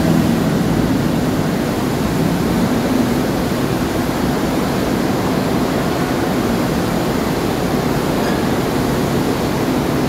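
Loud, steady rush of churning seawater surging through a ship's flooded well deck as an amphibious assault vehicle drives out into the sea, with a low engine drone that fades over the first few seconds.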